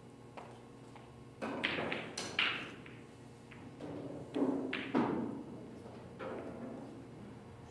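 A few scattered knocks with a short ring: a pair about a second and a half in and another pair near the middle, with fainter taps between, typical of the background of a pool hall.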